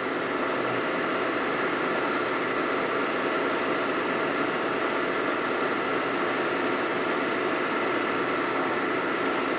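Vertical milling machine running steadily, its cutter taking a pass across the face of an aluminium Harley-Davidson panhead engine case half, with a thin constant high whine over the machine noise.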